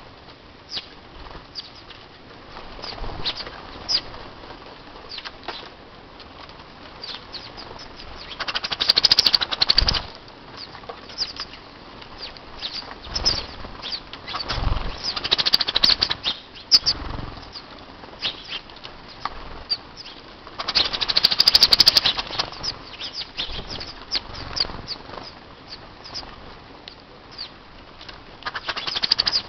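A flock of small birds, house sparrows among them, flapping and fluttering their wings with quick chirps while squabbling over scattered broken rice, in several loud flurries of wingbeats.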